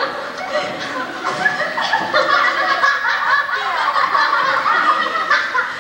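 A group of children giggling and chattering at once, their voices overlapping without a break.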